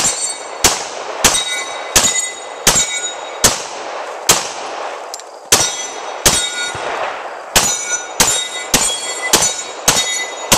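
Pistol fired in a rapid string at steel plates: about fifteen shots, mostly half a second to a second apart, each hit followed by the ring of a steel plate. There are two brief pauses, about four seconds in and again about six seconds in.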